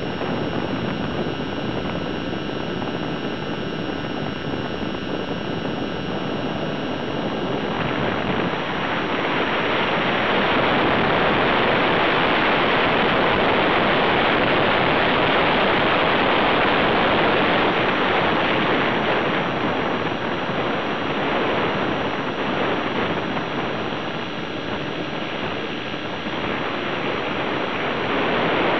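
Onboard sound of an Align T-Rex 600 ESP electric RC helicopter in flight: a steady whine of motor and gears over the rotor noise. About eight seconds in, a louder rushing noise from wind and rotor wash covers the whine and carries on to the end.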